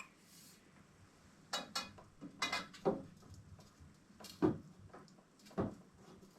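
A handful of short metallic clinks and knocks from handling copper pipe and tools, scattered from about a second and a half in, the loudest near the end.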